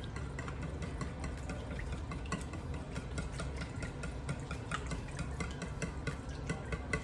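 A wire whisk stirring a thick mix of cream of chicken soup and brown gravy in a bowl: quick, irregular clicks of the whisk against the bowl, over a steady low hum.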